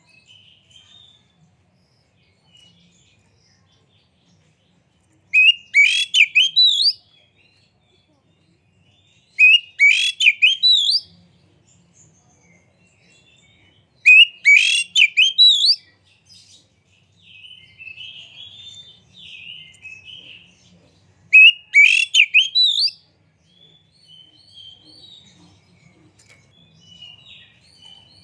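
Male oriental magpie-robin (kacer) singing. It gives four loud bursts of song, each a quick run of rising whistled notes lasting about a second and a half. Softer chattering notes fill the gaps between the bursts.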